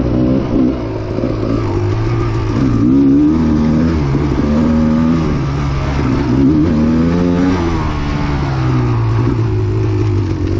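Kawasaki KX250XC 250 cc two-stroke dirt bike engine running under constantly changing throttle, its pitch rising and falling over and over.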